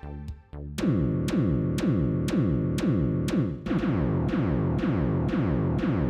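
Dark synthesized MIDI arrangement of a messenger ringtone, densely packed with notes. About a second in, hard attacks start coming roughly twice a second, with falling low notes between them.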